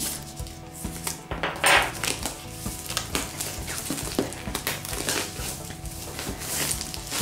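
Plastic shrink-wrap being slit with a knife and peeled off a cardboard board-game box: irregular crackling, rustling and tearing of the film, with scrapes of the blade.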